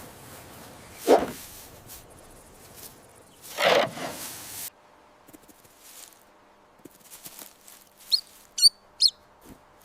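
Two brief noisy bursts, about a second in and near the middle, over a steady hiss. The hiss cuts off abruptly, then three quick, high, falling chirps of a small bird come near the end.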